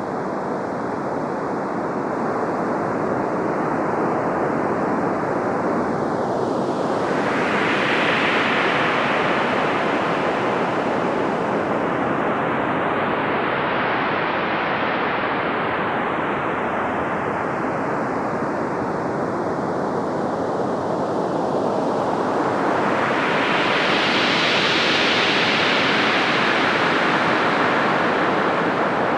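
Synthesizer noise pad from AAS's Ultra Pads pack for the VA-3 synth: a sustained wash of filtered noise, like surf, with no clear notes. Its tone sweeps slowly, brightening about a quarter of the way in, dulling, then brightening again near the end.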